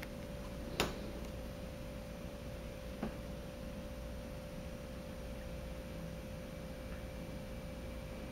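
A quiet room with a faint, steady, single-pitched hum, broken by a sharp click about a second in and a softer tick about three seconds in.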